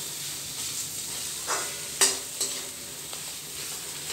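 Potato mash frying in a little mustard oil in an aluminium kadhai with a steady sizzle, as a steel slotted spoon stirs and presses it, scraping the pan. The spoon knocks against the pan a few times, the loudest knock about two seconds in, with a brief metallic ring.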